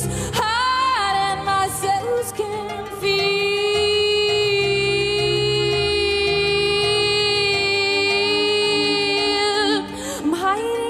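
A woman's voice singing live over instrumental accompaniment. Her voice slides up into a note near the start. From about three seconds in she holds one long steady note for nearly seven seconds.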